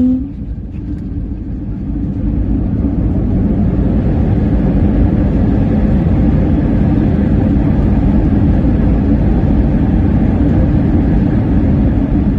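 Airliner landing: a steady low rumble of engines and rushing air, growing louder over the first couple of seconds, then holding steady.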